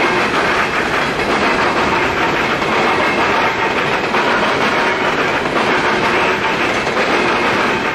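Empty coal hopper cars of a long Norfolk Southern freight train rolling past, a steady noise of steel wheels on rail with faint clicks.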